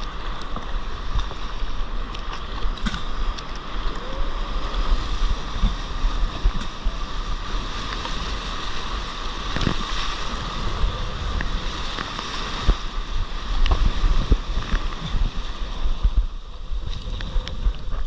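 Sea water rushing and splashing around a stand-up paddleboard as it rides through breaking surf, with wind buffeting the microphone as a steady low rumble.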